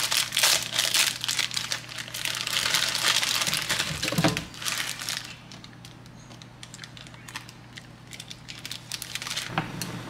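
Plastic instant-noodle wrapper crinkling and tearing as it is pulled open and handled, with a knock about four seconds in; after that only faint rustles and clicks.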